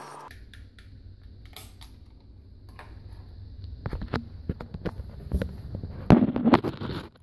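Toilet tank fill valve shutting off about a quarter second in, ending the hiss of refilling water. Then handling noise on the phone's microphone: low rumble, rubbing, clicks and knocks, louder in the last few seconds.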